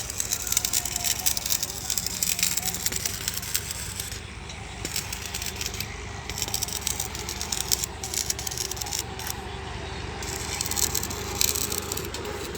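Crackling, scraping noise from repair work on a metal entrance gate, coming in spells with short breaks, over a low steady hum.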